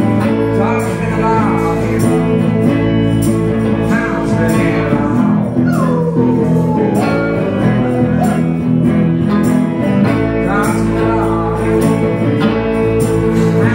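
Live blues band playing with electric guitars and bass over a steady beat of crisp percussion hits; a lead line bends and slides down in pitch about midway.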